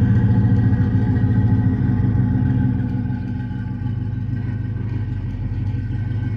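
An engine running steadily at a constant speed, dropping slightly in loudness about three seconds in.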